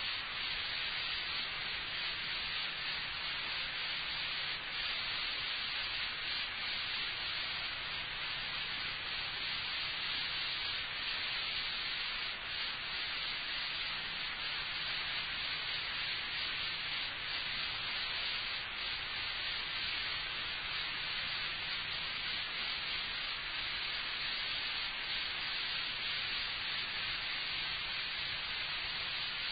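Steady tape hiss of an old lecture recording, brightest in the upper range, with a faint low hum that comes and goes.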